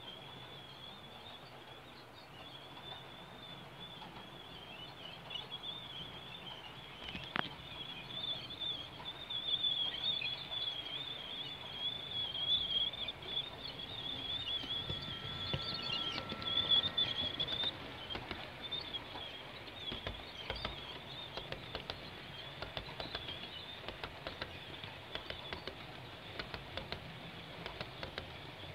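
LEGO train passing on plastic track: a high, wavering whine builds in loudness, then from about halfway the wheels clickety-clack rapidly over the track joints as the locomotive and its cars go by.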